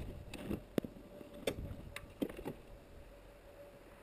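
A few scattered light knocks and clicks, mostly in the first couple of seconds, from hands working at the front of a snowmobile, likely its hood and latches.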